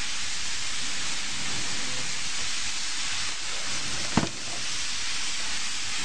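A steady hiss, with one sharp knock a little after four seconds in.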